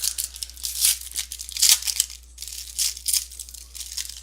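Panini Totally Certified basketball card packs being torn open and crinkled by hand: a series of short, crisp rips and crackles, the loudest a little under two seconds in.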